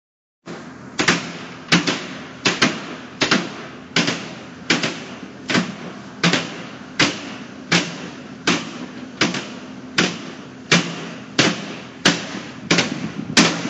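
A plastic wheelie bin struck over and over: a regular beat of knocks, about four every three seconds.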